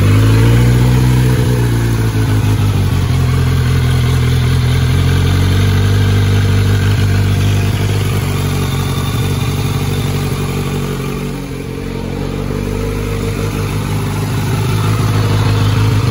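2021 Kawasaki Z900's inline-four engine idling just after starting, its pitch wavering for the first couple of seconds and then holding steady. It is running to circulate freshly added oil after an oil change.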